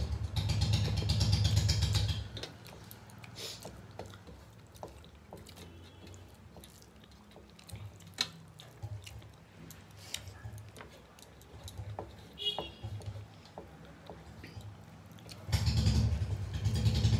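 Close-up eating sounds of rice being eaten by hand from metal plates: wet squishing and chewing with scattered small clicks and light taps of fingers on the plates. A louder low rumbling noise covers the first two seconds and returns near the end.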